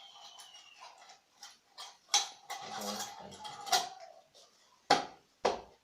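A handful of sharp metallic clicks and taps, some with a brief ring, from tools and the metal parts of an electrical wall switch being handled as it is taken out.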